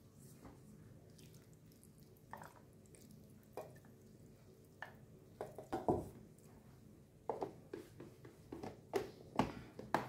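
Silicone spatula scraping thick curry sauce out of a stainless steel bowl into a plastic food-chopper jar, with wet plops and scattered knocks against the bowl. Near the end come sharper knocks as the chopper's motor unit is set onto the jar.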